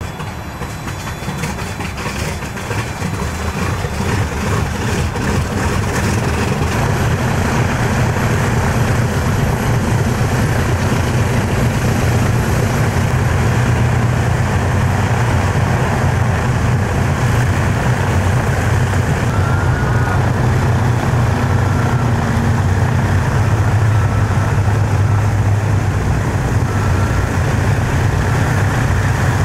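The four radial piston engines of a B-29 Superfortress running at low power as it taxis: a deep, steady drone of engines and propellers that grows louder over the first several seconds, then holds steady.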